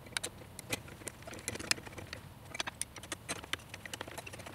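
Scattered light clicks and taps of a hex key and bolts as a stepper motor is bolted down to a CNC machine's rail.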